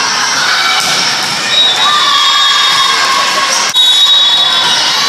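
Crowd of spectators and players cheering and shouting, many high voices together, as a volleyball rally ends. The sound breaks off abruptly a little under four seconds in and picks up again at once.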